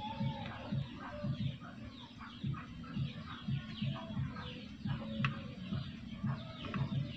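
Chickens clucking in a steady run of short calls, two or three a second, with thin high chirps over them.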